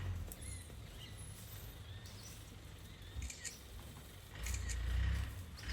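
Quiet outdoor background with a few faint, short high chirps and a low rumble that swells for about a second near the end.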